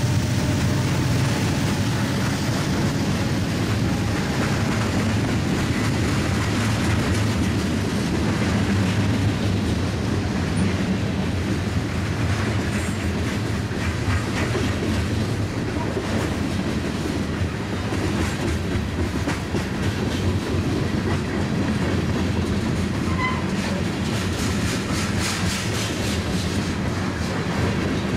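Norfolk Southern H70 local freight train of covered hopper cars rolling steadily past: a continuous rumble of steel wheels on rail with clickety-clack over the rail joints, which grows more distinct near the end.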